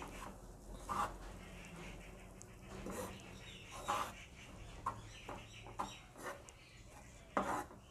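A spatula stirring and scraping flour as it roasts in ghee in a nonstick pan: soft, irregular scrapes about a second apart.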